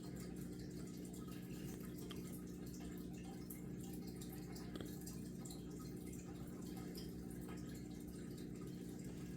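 Steady low hum with faint, scattered light ticks over it.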